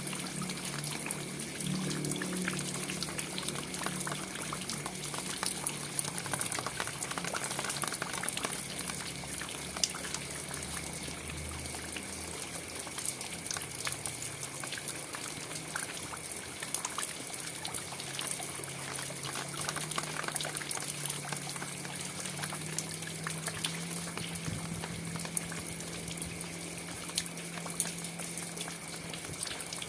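Steady rain falling, with many separate drops and splashes and water trickling and pouring off surfaces. A low steady hum runs underneath.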